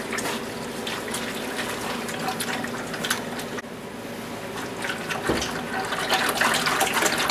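Thick concentrated orange antifreeze pouring from a plastic jug into a plastic bucket: a steady stream of liquid with scattered small splashes.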